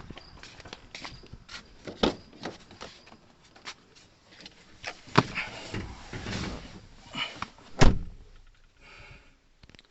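A series of irregular knocks and clunks, with a single loud thud about eight seconds in.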